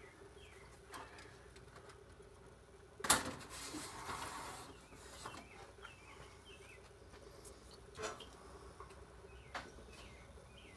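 Faint handling noises of circuit boards being moved and set down: a sharp knock with a rustle about three seconds in, then a few lighter knocks.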